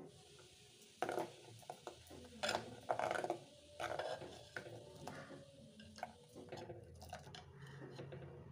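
Steel ladle stirring rasam in a clay pot: liquid sloshing and the ladle knocking against the pot, busiest in the first few seconds, then softer.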